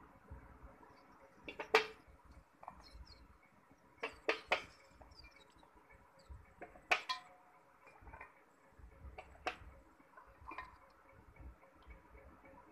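Wet slate pencils and bars knocking and clinking against a steel bowl and against each other as they are handled, with several sharp separate knocks: a quick cluster of three about four seconds in, and single knocks about two, seven and nine and a half seconds in.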